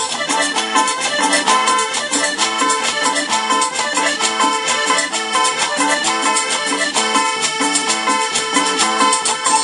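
Live tropical dance band playing an upbeat number, with a repeating melody over a steady percussion beat.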